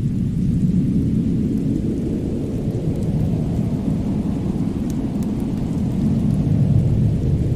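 Steady, deep rumbling winter storm and fireplace ambience, with a few faint crackles from the fire.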